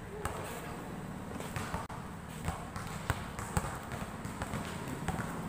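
A basketball being dribbled on a hard court: a run of sharp bounces at uneven intervals as a player handles the ball during a pickup game.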